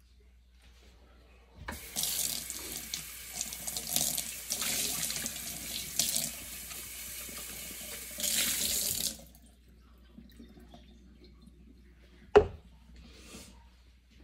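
Kitchen tap running into a sink, the water splashing unevenly as the blender cup is rinsed, for about seven seconds before it is turned off. A few seconds later a single sharp knock.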